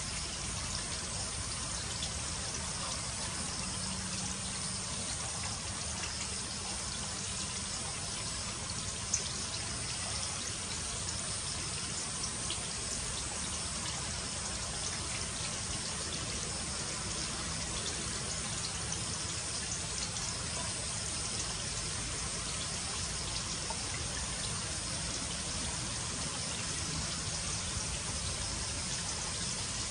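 Steady outdoor background hiss, even and unchanging, with a low rumble underneath and a single faint click about nine seconds in.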